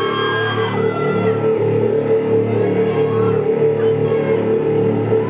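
Background music: a held drone over a low pulsing beat, with high sliding tones in the first second or so.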